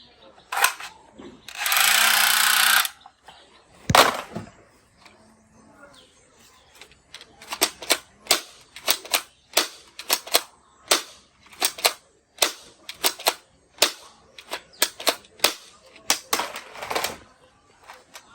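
Toy guns being worked and fired: a noisy burst of sound effect near the start, a single sharp crack about four seconds in, then a long irregular run of sharp clicks, several a second.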